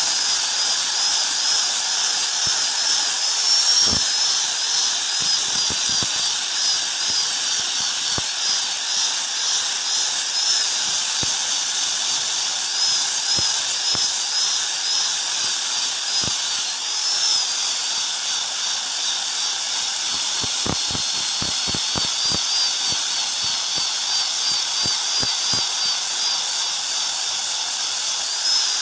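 Angle grinder with an abrasive disc grinding the curved edge of a steel cleaver blade made from a leaf spring. Its high motor whine is steady and wavers slightly in pitch as the disc bears on the steel, with scattered light ticks.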